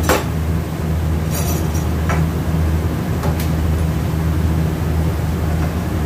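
A steady low machine hum, with a few light metal clicks and clinks as automatic-transmission parts are handled on a steel bench.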